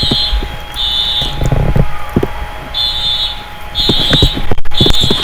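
Building fire alarm horns sounding the temporal-three evacuation pattern: three high-pitched beeps about a second apart, a pause, then three more. Scattered short knocks sound underneath.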